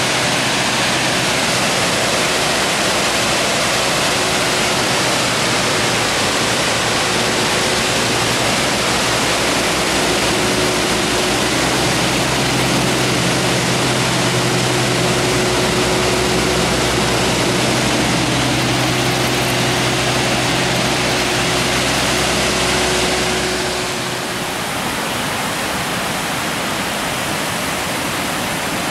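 Steady rushing roar of a large waterfall, with a faint low steady hum under it through the middle. About four-fifths of the way through it gives way to a slightly quieter rush of water spilling over a rock ledge.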